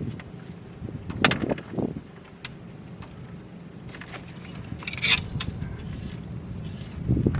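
Light clicks, clinks and rustling of objects being handled. There is a louder clatter a little over a second in and a busier patch of clinking around four to five seconds in.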